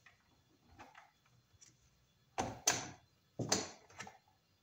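Handling noise as an exit light fixture is fitted and fastened to an electrical box: a few faint clicks, then four short scraping rattles in quick succession in the second half.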